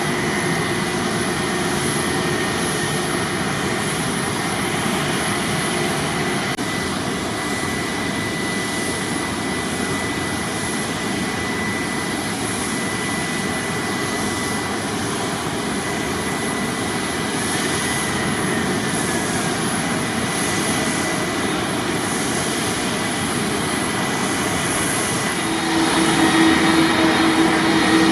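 Jet airliner engines running, a steady rush with a thin high whine. About 25 seconds in, a louder low drone joins and the sound grows.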